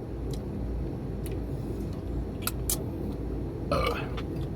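Eating crispy deep-fried pork: a few sharp crunches and clicks, then a short burp near the end, over a steady low rumble.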